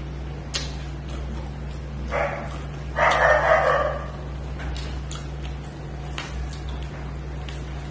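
Fingers mixing rice and cabbage curry on a steel plate, giving scattered small clicks and squishes over a steady low hum. About three seconds in comes a louder, rough sound lasting about a second, with a shorter one just before it.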